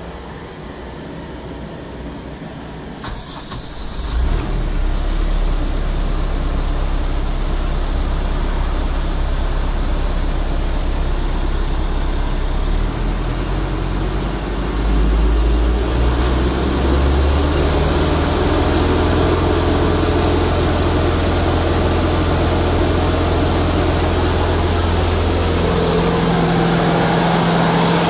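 New Holland Boomer 47 compact tractor's diesel engine, heard from inside the cab, starting about four seconds in just after a click, then running steadily. About fifteen seconds in the engine speed rises, and it runs faster and louder for the rest.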